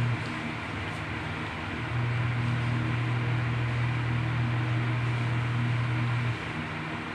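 A steady low mechanical hum over a constant noisy background. The hum comes in about two seconds in and cuts off abruptly near the end.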